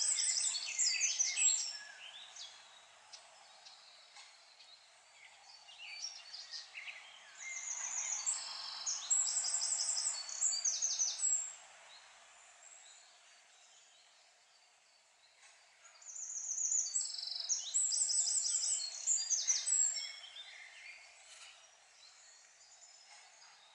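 A songbird singing in three bouts of quick repeated high notes, roughly eight seconds apart, over a steady outdoor hiss.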